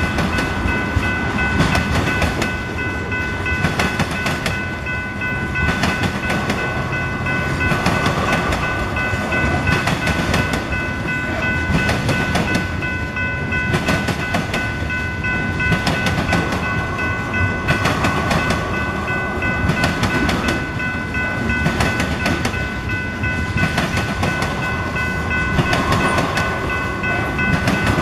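Freight train of tank cars rolling past at steady speed, wheels clicking and clacking over the rail joints with a continuous rumble. Steady high-pitched ringing tones hold throughout.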